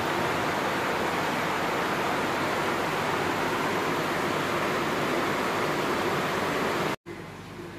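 Steady rushing noise that cuts off abruptly near the end, leaving a much quieter room.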